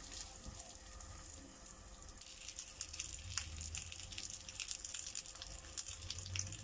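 Filled crepe parcels frying in cooking oil in a pan: a faint sizzle with scattered crackles, louder from about two seconds in.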